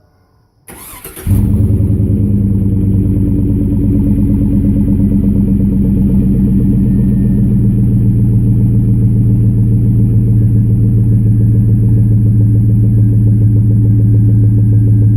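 2002 Chevy Tahoe's 5.3-litre V8 on a warm start through a Dynomax cat-back exhaust: the starter cranks briefly under a second in, the engine catches, then settles into a steady, deep idle.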